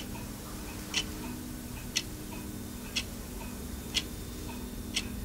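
A clock ticking: one sharp tick every second with a fainter click between, over a faint steady hum.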